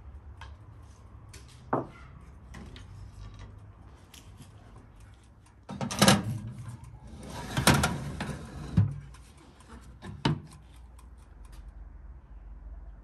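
A metal pie pan being loaded into a countertop electric oven: scrapes and clunks of the pan against the oven rack and door, loudest about six and eight seconds in, with a last knock a little after ten seconds. Faint light taps and a single knock come before.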